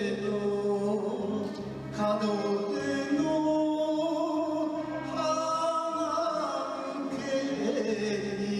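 Enka song being sung over an instrumental backing track, with long held notes that waver in vibrato over a steady bass line.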